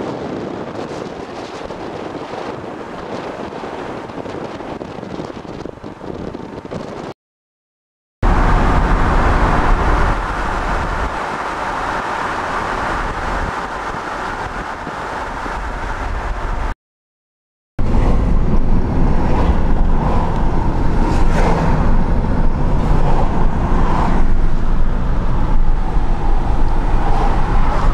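Road and wind noise from inside a moving car: a steady rumble that cuts to silence twice for about a second, louder after the first gap.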